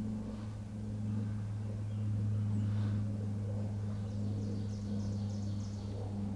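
Quiet woods under a steady low hum, with a faint songbird trill of quick high notes about four seconds in.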